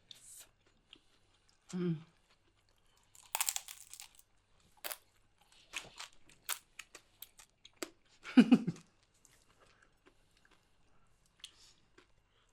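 Close-up chewing and crunching of crispy deep-fried pork knuckle (crispy pata), with clusters of sharp crackles from the crisp skin. A short hummed 'mm' comes about two seconds in, and a louder one, the loudest sound, about eight and a half seconds in.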